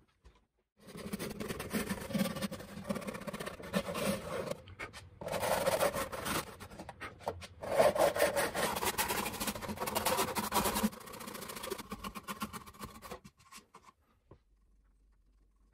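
Hand saw cutting lengthwise slots into a seasoned cherry-wood vase, a fast run of rasping strokes broken by two short pauses. The sawing stops near the end.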